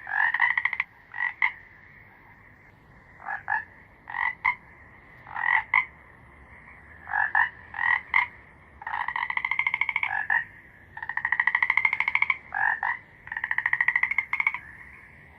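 A frog calling. It gives short croaks, mostly in pairs, then from about nine seconds in three longer, rapidly pulsed trills that rise slightly in pitch, over a faint steady high tone.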